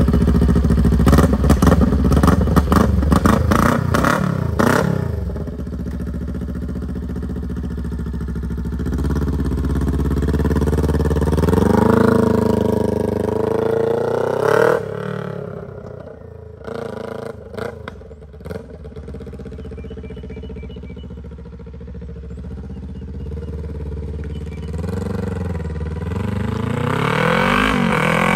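2021 Kawasaki Ninja 400's parallel-twin engine running close by, then pulling away and rising in pitch through the gears as the bike rides off. It fades with distance through the middle, then grows louder again near the end as the bike comes back.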